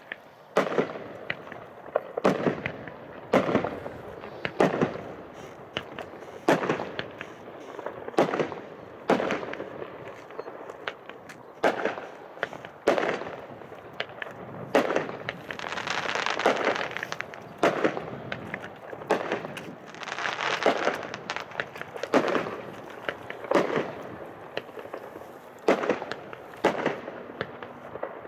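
Highfalutin 49-shot, 500-gram consumer fireworks cake firing, a shot going off about every second. Near the middle come two longer spells of dense crackling hiss between the bangs.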